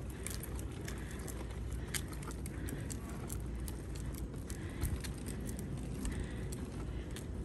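Chicco Bravo stroller wheels rolling over asphalt: a steady low rumble with many small clicks and rattles, and one heavier bump about two-thirds through.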